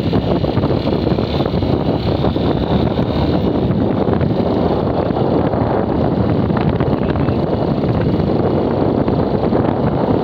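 Steady wind rushing over the microphone on a moving motorcycle, mixed with the hum of the motorcycle's engine and road noise.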